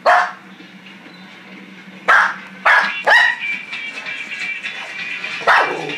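Small shaggy dog barking at neighbours outside, alert barking in short sharp barks: one at the start, a quick run of three about two seconds in, and one more near the end.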